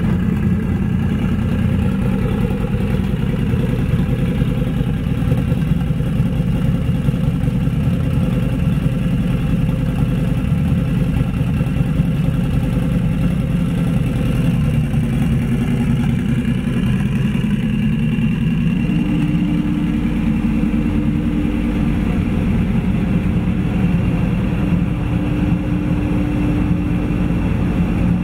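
Turbocharged Harley-Davidson V-Rod's liquid-cooled Revolution V-twin running steadily on a chassis dyno, held at an even speed without revving. A steady higher hum joins about two-thirds of the way through.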